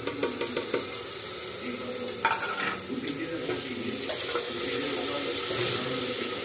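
Masala paste sizzling as it fries in hot oil in a pressure cooker, with a few sharp clinks of a spoon scraping a steel bowl in the first second, then the scrape of a wooden spatula stirring it. The sizzle grows louder in the second half.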